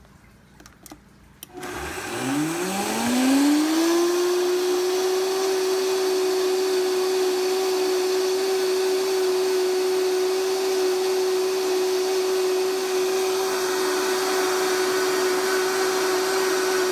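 Vitamix blender grinding dry oats into a flour-like powder. After a few clicks the motor starts about a second and a half in, rises in pitch over a couple of seconds to a steady high speed, holds there, and begins to wind down at the very end.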